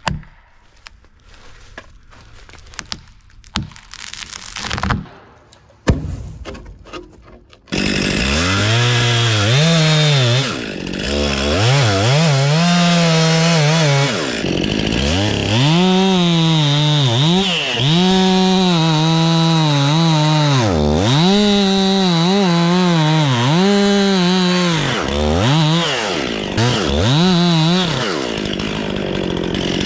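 A few scattered knocks and rustles, then about eight seconds in a gas chainsaw comes in loud, cutting the face notch in a pine trunk. Its engine pitch dips and rises again and again as the chain bites into the wood.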